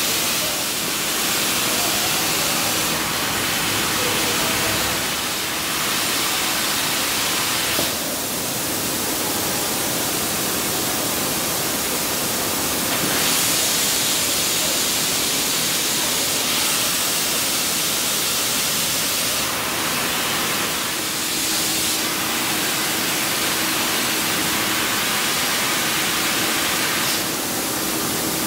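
Steady rushing noise of factory machinery or air extraction running throughout, with a faint low hum that comes and goes. Its character shifts slightly every few seconds.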